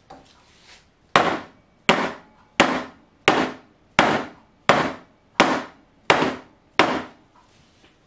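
A filled jar of whipped-soap shaving cream knocked down onto a work counter nine times in a steady rhythm, about three taps every two seconds. The tapping settles the cream into the jar and brings trapped air bubbles to the top.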